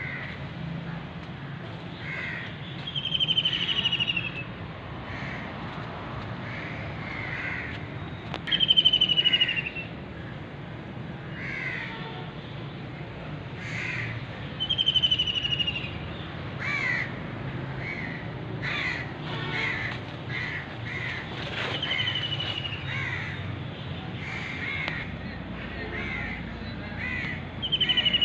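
Crows cawing: five loud, harsh calls that fall in pitch, one about every six seconds, with shorter calls in between. A low steady hum runs underneath.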